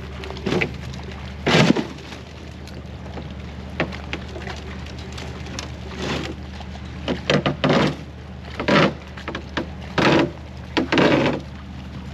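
Rusted old wood stove being dragged up a brushy, snowy bank on a tow truck's winch line: irregular cracks and crunches as it breaks through brush and crusted snow. Under it runs the steady low hum of the tow truck's engine idling.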